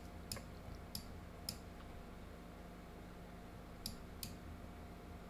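Computer mouse clicking: faint, sharp single clicks, three in the first second and a half and two more about four seconds in, over a steady low hum.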